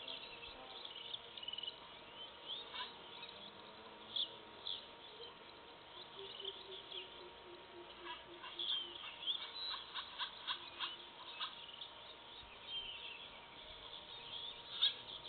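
Forest birds chirping and calling, short high notes repeated through the whole stretch, with a low run of notes falling in pitch about six seconds in and a quick cluster of clicks or chips in the middle. A faint steady tone sits underneath.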